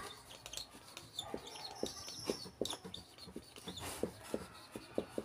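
Faint animal clucking: a run of short, clipped calls at about four a second.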